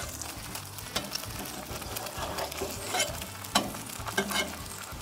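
Sunny-side-up eggs sizzling in a cast-iron griddle pan, with a few sharp clicks and scrapes of a metal spatula against the pan.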